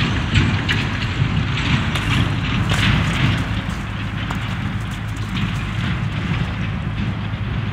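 Wind buffeting the microphone, a steady low rumble, with scattered crunching of footsteps and puppy paws on frost-covered gravel.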